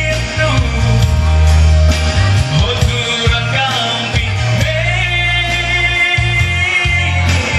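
A man singing live into a handheld microphone over loud amplified backing music with a heavy bass line.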